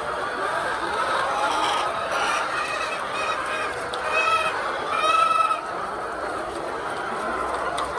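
A flock of hens clucking steadily all together, with two louder calls about four and five seconds in.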